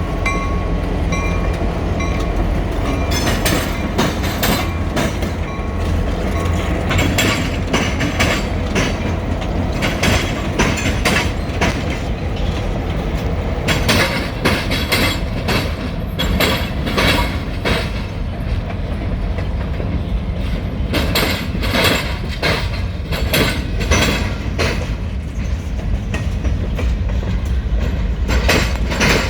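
Grand Elk freight train rolling past: a steady low rumble with the wheels of the cars clacking in quick clusters, clickety-clack, as wheel sets cross the rail diamond. A faint steady tone fades out in the first few seconds.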